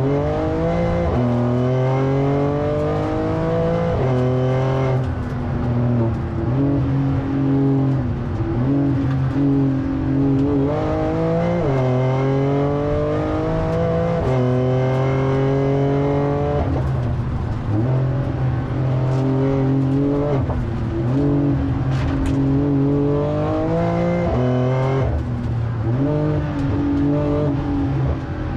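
Porsche 911 Turbo S twin-turbocharged flat-six heard from inside the cabin under hard driving. The engine pitch climbs, falls back at each shift or lift, and climbs again, over and over, as the car is driven from corner to corner.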